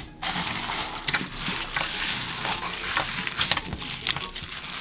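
Clear blue slime packed with foam beads being folded and squeezed by hand: a dense, continuous crackling with many small pops as the beads are worked through the slime.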